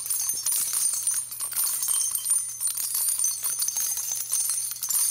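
A steady, shimmering jingle of many tiny metallic clicks and tinkles, like small bells shaken continuously, over a faint low hum.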